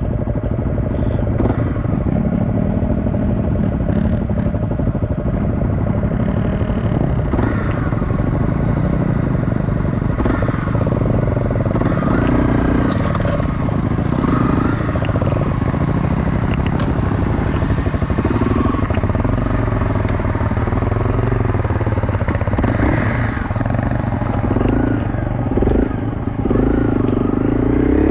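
Off-road dirt bike engine running at low trail speed, revving up and down with the throttle over rough forest ground.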